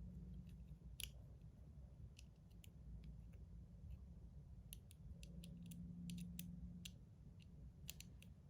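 Faint, scattered small clicks and ticks of small metal fidget-slider parts being handled and worked apart by hand.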